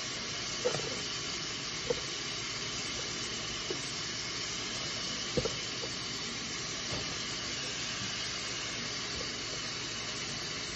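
Cubes of seasoned beef sizzling steadily in hot olive oil in a pot, with a few light taps of a utensil against the pot.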